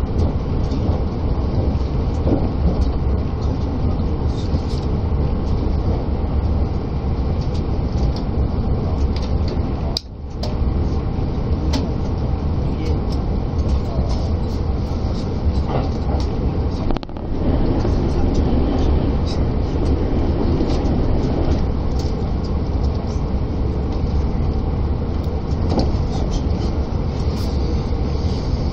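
Steady running noise of a limited express train heard from inside the carriage at speed: a low rumble of wheels on rail, with two short dips in loudness about ten and seventeen seconds in.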